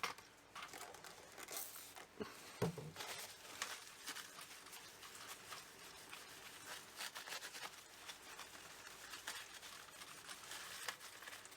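Faint rustling, rubbing and scattered light clicks of small parts being handled, as a Commodore 64 key's contacts are cleaned with isopropyl.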